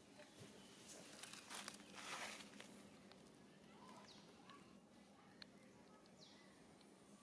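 Faint outdoor quiet with a brief rustle of dry leaves about two seconds in and a few short, high, falling chirps later on.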